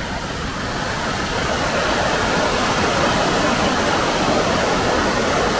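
A flood-swollen stream rushing and churning in a loud, steady torrent after heavy rain. It grows louder over the first second or two, as the muddy water pours in foaming waves past a bridge.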